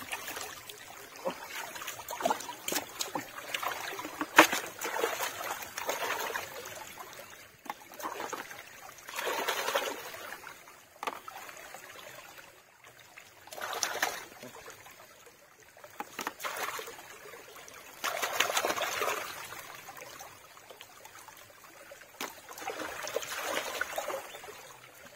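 Shallow stream water trickling and splashing as hands rummage through submerged brushwood, swelling louder every few seconds, with a few sharp clicks.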